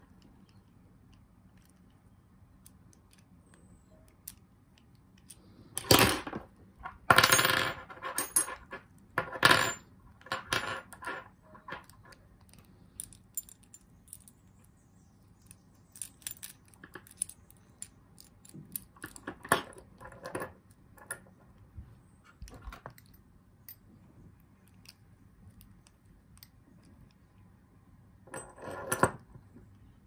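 Small brass and steel padlock parts clicking and clattering against each other while a Lockwood 334B45 padlock is put back together, with the loudest run of rattles a few seconds in, scattered clicks after, and another short clatter near the end.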